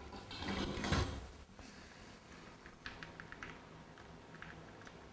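Metal chain of a hanging oil lamp's raise-and-lower fixture clicking as the lamp is hoisted toward the ceiling: a dull knock about a second in, then a quick run of light clicks, with a few more later.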